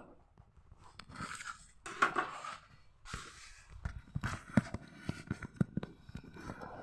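Kitchen knife cutting slices of vegetable on a cutting board: short crunchy slicing strokes and irregular light taps of the blade on the board, the taps coming faster in the second half.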